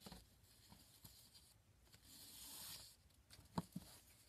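Faint rustling of wrapping paper and ribbon as a gift-wrapped box is unwrapped, with a longer rustle about two seconds in and two light taps near the end.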